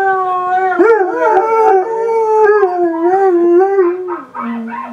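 Northern Inuit Dog howling: a long, wavering howl that rises and falls in pitch, dipping out briefly about four seconds in and then going on at a lower note.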